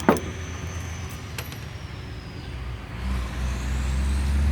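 A sharp knock near the start, then a motor vehicle's low engine rumble growing louder from about three seconds in, with a faint rising whine above it.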